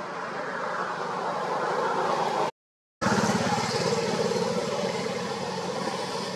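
A motor vehicle's engine running as it passes, growing louder over the first two and a half seconds. It is broken by a half-second dropout to silence, then comes back loud and slowly fades.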